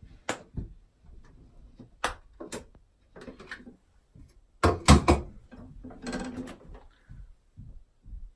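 Clicks and knocks of a small caulking gun being worked and handled, the loudest a double clunk about five seconds in, followed by a brief rustle.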